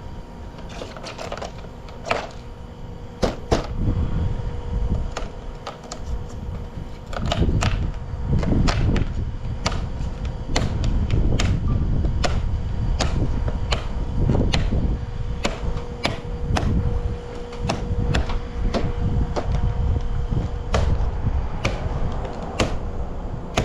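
Vinyl siding clicking and snapping as a panel is worked and locked into place with a siding zip tool: a long irregular run of sharp clicks, about one or two a second, over a low rumble.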